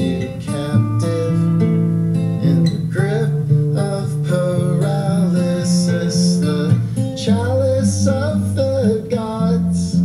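Cassette tape playing back through a JVC PC-X560 stereo's speakers: a song with strummed acoustic guitar. The tape deck plays cleanly, in working order.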